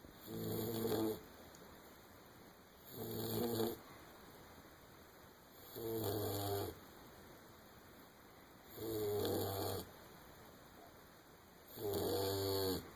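English springer spaniel puppy snoring: five snores, each about a second long, coming about every three seconds.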